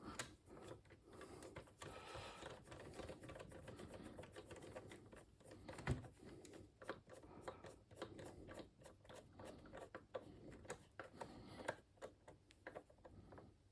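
Faint clicking and tapping of computer parts and cables being handled during reassembly, with one louder knock about six seconds in.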